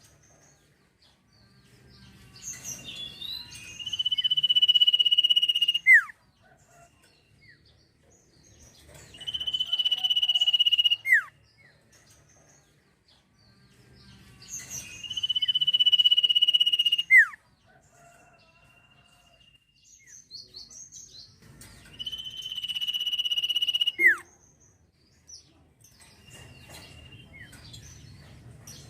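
Sirtu songbird singing in repeated bouts about six seconds apart. Each bout is a short chatter, then a long, steady high whistle that ends in a quick downward-sweeping note.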